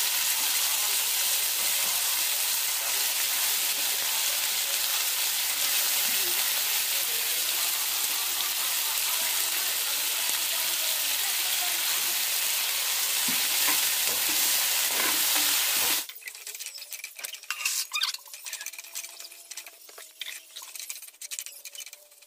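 Sprouted pulses sizzling loudly in hot oil in a frying pan. About sixteen seconds in, the sizzle cuts off suddenly, leaving quieter scattered clicks and scrapes of a spatula stirring them in the pan.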